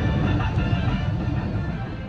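Background music with guitar, fading out toward the end.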